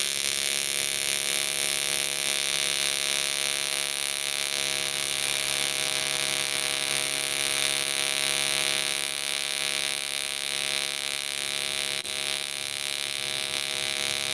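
AC TIG welding arc on aluminum pipe, a steady buzz as puddles are laid down at about 90 amps, with a short dip about two seconds before the end.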